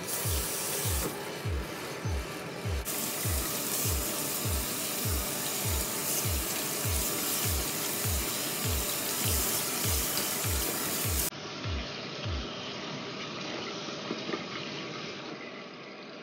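Background music with a steady low kick beat, about two a second, over a kitchen tap running into a stainless steel sink as fish pieces are rinsed under it. The beat stops about three-quarters of the way through.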